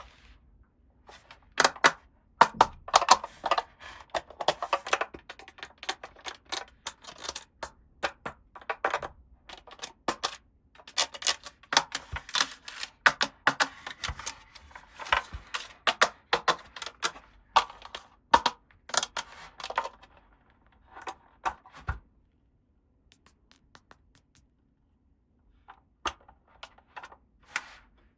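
Small hard plastic toy pieces clicking and clattering as they are handled and set down, in a dense run of quick taps for most of the time, then a few scattered taps after a short quiet pause near the end.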